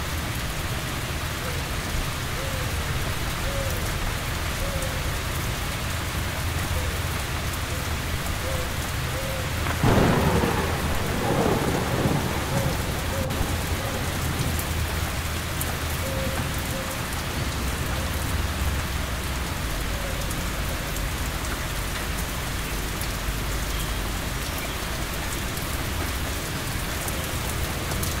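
Steady heavy rain falling, with a thunderclap about ten seconds in that rolls on as low rumbling for a few seconds.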